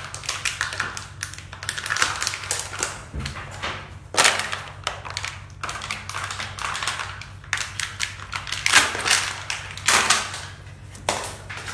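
A plastic water bottle crackling and crunching in a corgi's jaws as the dog bites and tugs at it, in irregular bursts of sharp clicks.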